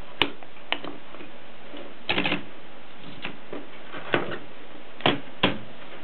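Sharp, irregular mechanical clicks and clacks from a 1950s Voss portable typewriter's metal parts being handled, about seven in all with a quick rattle of several about two seconds in, over a steady hiss.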